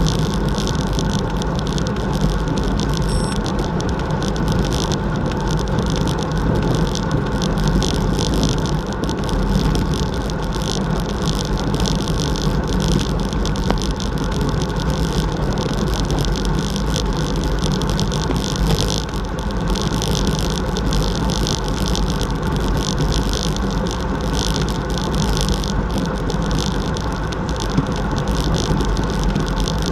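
Steady wind rush on a bike-mounted action camera's microphone, mixed with tyre and road noise from a road bike riding at about 40 km/h.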